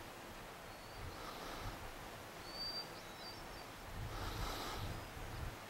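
Faint outdoor ambience: a small bird's short, high whistled call, a held note with a quick flick, repeating every few seconds over a soft hiss, with a soft rush of noise about four seconds in.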